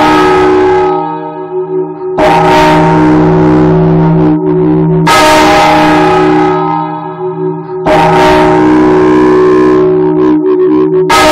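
Half-muffled ninth bell of a ring of church bells, swung full circle on its wheel and heard from inside the bell chamber. It strikes about every three seconds, four loud clangs in all, and each leaves a long ringing hum.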